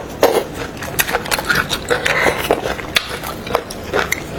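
Close-miked eating of boiled beef bone marrow: an irregular run of short clicks and smacks from mouth, bone and utensils.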